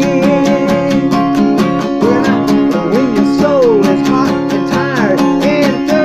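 Acoustic guitar strummed in a steady rhythm, about four strokes a second, with a wavering melody line gliding above the chords between sung lines of a slow song.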